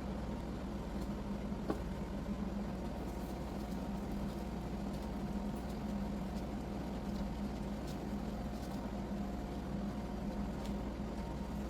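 A steady mechanical hum, like a small appliance motor running, with one faint click about two seconds in.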